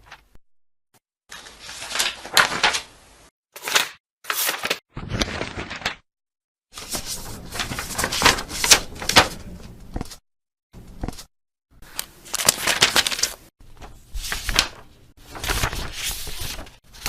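Paper page-flip sound effects played one after another: separate rustling riffles of fast page flicks, some under a second and some several seconds long, with short silences between them.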